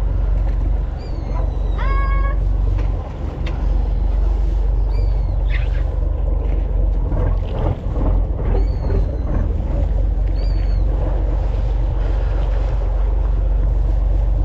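Steady low rumble of a boat at sea with wind on the microphone, with a few short high calls that rise and fall scattered through, and some knocking around the middle.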